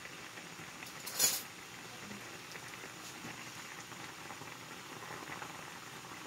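Water boiling steadily in a saucepan around halved eggplants, with a short loud knock about a second in. Near the end a fork prods the eggplant and taps lightly against the pot, testing whether it is cooked.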